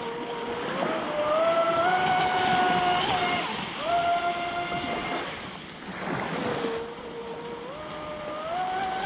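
Electric motor of a 6S-powered RC speedboat whining at speed, its pitch stepping up and falling back several times with the throttle, lowest for a couple of seconds in the middle. Under it, water rushes and splashes along the hull.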